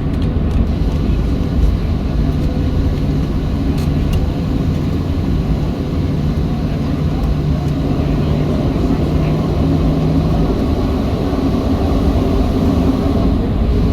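Cabin noise inside a taxiing Boeing 737-700: the steady drone of its CFM56-7B turbofan engines over a low rumble, with a steady hum that shifts higher in pitch about ten seconds in.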